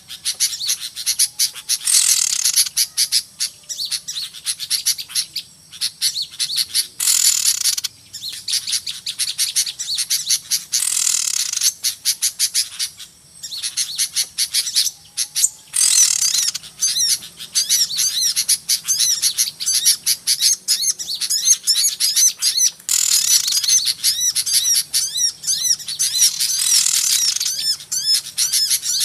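A dense, noisy chorus of many small songbirds chirping and twittering rapidly, with louder high, descending calls breaking through every few seconds. This is a trapper's lure call of noisy small birds (suara pikat burcil ribut).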